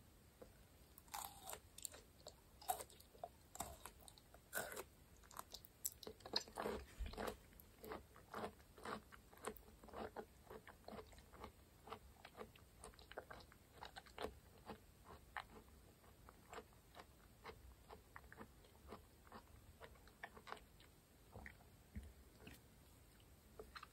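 Close-miked eating sounds: bites and chews of raw aloe vera gel drizzled with honey, a rapid run of crisp clicks that is densest over the first ten seconds or so and grows sparser after.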